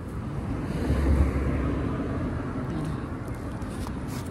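Outdoor noise with a low rumble that swells about a second in and slowly fades, and a few faint clicks near the end.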